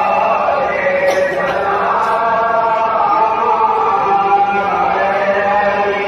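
Men's voices chanting a Muharram salaam, a devotional salutation to Imam Hussain, in long held notes that slowly bend in pitch.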